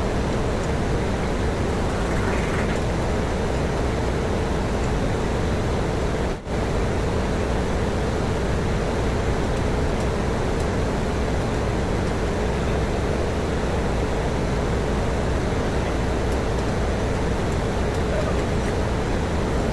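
Steady, loud drone of a ship's engine room: running machinery with a constant low hum, broken by a momentary dropout about six seconds in.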